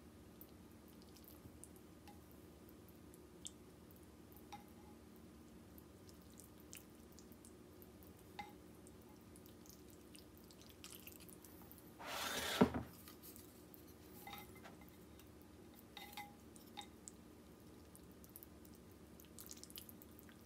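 Ramen noodles lifted out of the soup with wooden chopsticks and let fall back into the bowl: faint drips and small clicks of chopsticks against the noodles and bowl, with one louder wet splash about twelve seconds in.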